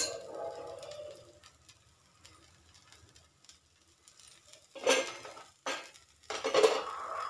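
A masala dosa sizzling faintly on a hot dosa tawa. A sharp clink comes at the start, and louder handling knocks and scrapes come about five seconds in and again near the end.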